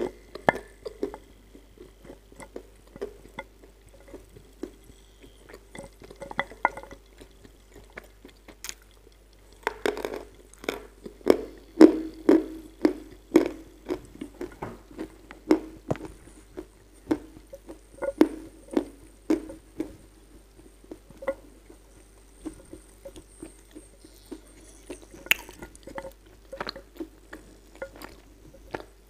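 Chunks of dry Kyrgyz edible clay being chewed with crisp crunches, mixed with clicks of clay pieces knocking against a glass dish as they are picked through. The crunching is densest in the middle.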